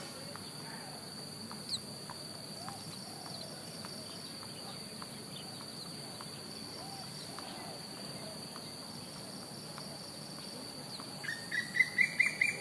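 Insects trilling steadily in the background with faint soft bird chirps, then near the end a bird breaks into a rapid run of loud, sharp chirps, about six a second, rising slightly in pitch.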